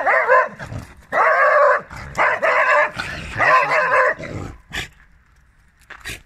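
A dog barking loudly: four drawn-out barks, about one a second, followed by a couple of short sharp clicks near the end.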